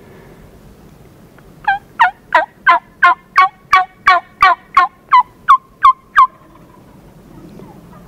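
Hunter's mouth turkey call giving a series of about fourteen loud hen yelps, roughly three a second, each falling in pitch. It starts just under two seconds in, stops a little past six seconds, and is meant to draw in a distant gobbler.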